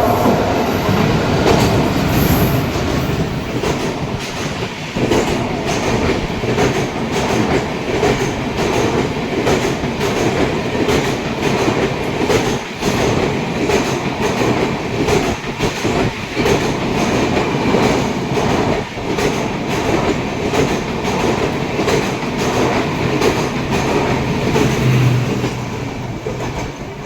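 Express passenger train running through a station at speed without stopping, its coach wheels clattering over rail joints in a steady, repeating clickety-clack under a continuous rumble. It dies away near the end.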